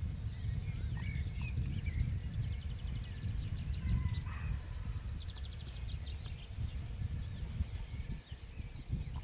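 Low, uneven rumble of wind buffeting the microphone, with small birds chirping and giving quick high trills over it.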